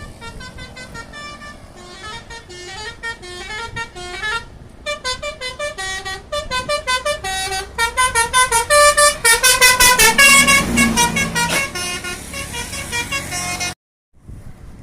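Basuri telolet horn, a multi-tone musical bus horn, playing a tune as a quick run of short notes that step up and down in pitch, loudest around the middle. Near the end it cuts to silence briefly, then starts again.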